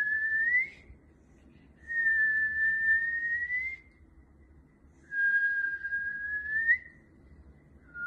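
A person whistling long, steady, high notes, each ending in a quick upward slide, repeated with short pauses between them.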